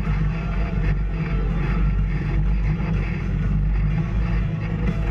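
Off-road vehicle engine running steadily while driving along a trail.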